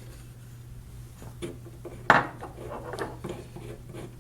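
Small metal clicks and clinks from the sterilizer's solenoid valve parts and tools being handled as the loosened valve stem is turned out by hand, with one sharp clink about two seconds in. A steady low hum lies underneath.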